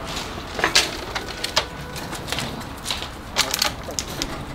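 A scatter of sharp, short knocks and clicks at irregular spacing, typical of hand work on a wooden building frame such as nailing and fitting timber.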